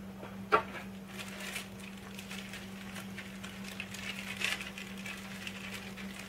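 Clear plastic zip-top bag rustling and crinkling as it is lifted out of a cardboard box and handled, with a single sharp tap about half a second in.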